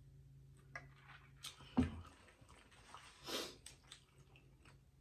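Plastic drinking tumbler set down on a table with a thump a little under two seconds in, among small clicks and handling noises. A short rustle follows about a second and a half later.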